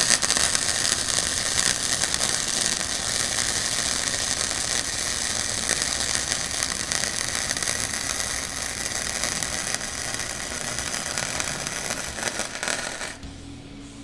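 Flux-core wire-feed welding arc crackling steadily as a bead is run on a steel exhaust pipe, starting suddenly and cutting off about a second before the end. The wire speed is a little too high and the torch angle too steep, by the welder's own account, and the bead burns a hole.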